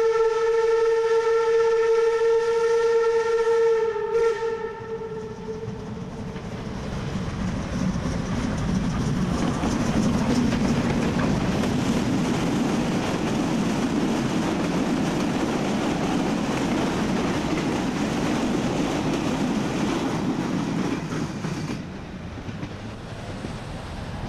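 Narrow-gauge steam tank locomotive sounding a long whistle that stops about four seconds in. Then the train runs past, the working locomotive and the wheels of its coaches on the rails building up and falling off near the end.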